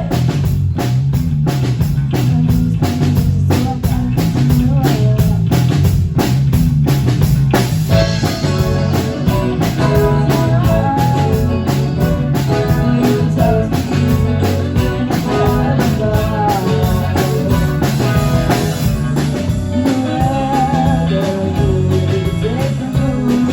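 A rock band playing a song at a sound check: a drum kit keeps a steady beat under bass and electric guitar, and a melody line comes in more strongly about eight seconds in.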